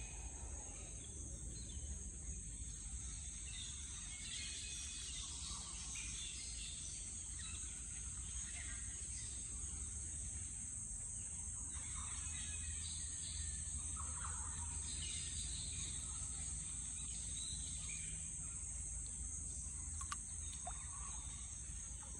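Steady high-pitched insect drone, with scattered faint bird chirps and a low steady rumble underneath.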